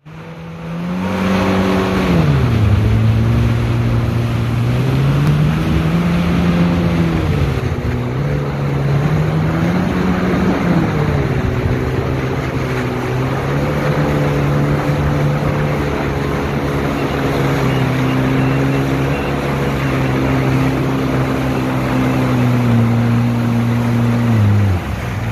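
Jet ski engine running at speed over the rush of water and wind, its pitch dropping about two seconds in, rising and falling a couple of times, then holding steady until it falls away near the end.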